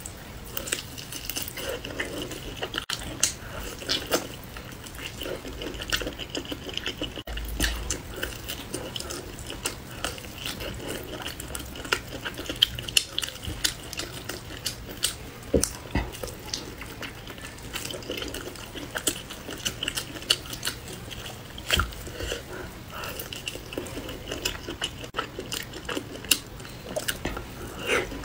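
Close-miked eating: wet chewing, mouth smacks and roasted meat being torn from the bone, a steady run of small sharp clicks and crackles.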